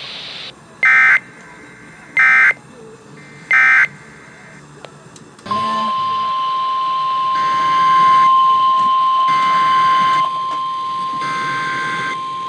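Emergency Alert System SAME header: three short, loud bursts of digital data tones about a second and a half apart. About five and a half seconds in, the steady single-pitch NOAA Weather Radio warning alarm tone starts, with three more data bursts sounding over it. Together they announce an incoming alert, here a severe thunderstorm warning.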